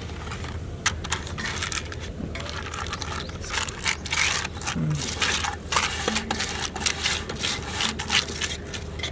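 Butter paper crinkling and rustling in many short crackles as fingers press it into an aluminium pan, rubbing against the metal.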